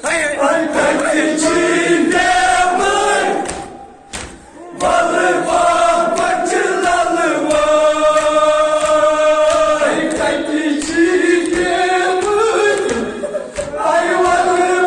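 Group of male voices chanting a Kashmiri noha, a Muharram lament, in long held sung lines with two short breaths between phrases. A steady beat of sharp strikes runs underneath.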